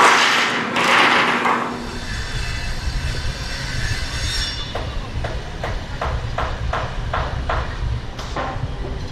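Construction-site noise under a low engine rumble. From about halfway in comes a run of eight or so sharp knocks, two or three a second, as crews hammer nails into wooden coaster timber.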